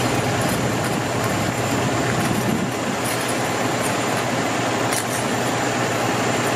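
Heavy fire-truck engine running steadily, a constant drone under a hiss.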